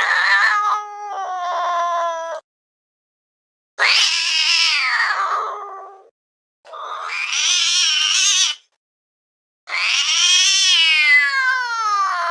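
Domestic cat yowling: four long, drawn-out calls, each rising and then falling in pitch, with silent gaps between them.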